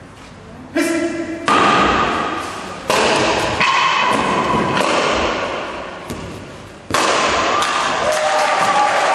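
A short shout (kiai), then several sharp cracks as wooden breaking boards are smashed by taekwondo kicks in quick succession, each ringing in the hall. Applause breaks out near the end.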